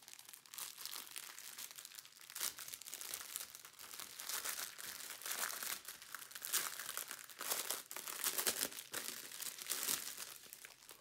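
Clear plastic packaging crinkling and rustling in a steady run of small crackles as a strip of sealed diamond-painting drill bags is handled and unwrapped.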